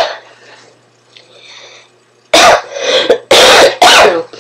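A woman with a cold coughing into her fist: a quiet pause, then a run of three or four loud coughs in quick succession from about two seconds in.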